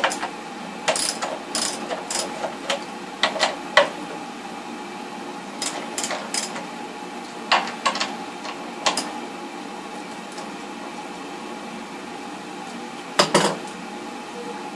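Metal clicks and clinks of a nut driver fitting onto and turning the nuts on an electric water heater's heating-element flange, coming in scattered groups of two or three, the loudest cluster near the end, over a steady background hum.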